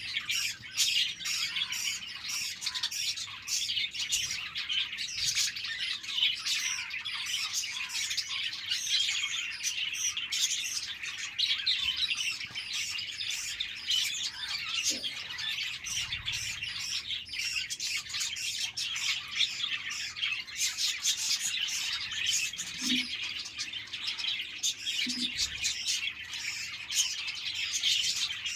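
A flock of budgerigars chirping and chattering, many birds at once in a continuous dense warble with occasional squawks.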